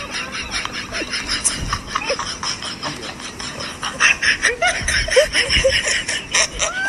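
A person laughing in a quick run of breathy, snickering bursts, getting louder about four seconds in.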